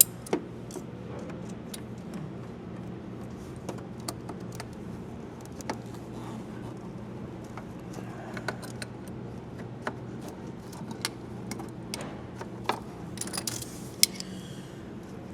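Metal hand tools clicking and clinking against the engine while fuel lines are undone on a 2JZ's fuel rail: scattered sharp clicks over a steady low hum. A louder click comes near the end, with a brief hiss.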